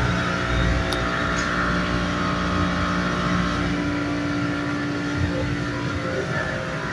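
Steady buzzing hum, several held tones over a low rumble, with one faint click about a second in.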